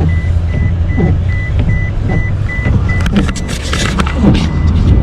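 Inside a moving car: steady low engine and road hum, with a high electronic warning beep repeating about two to three times a second that stops about three seconds in, followed by a brief burst of rustling.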